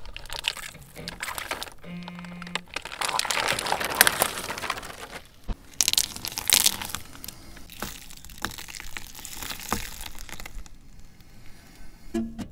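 A car tyre rolling over and crushing plastic soda bottles and plastic containers: a run of crackling, crunching and sharp cracks as the plastic buckles and splits. Near the end come single sharp cracks, as eggs break under the tyre.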